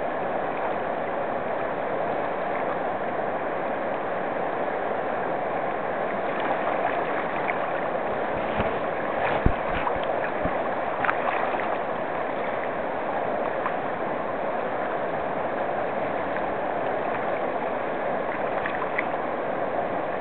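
Fast, shallow river water rushing steadily over rocks and through a whitewater riffle. A single brief thump comes about nine and a half seconds in.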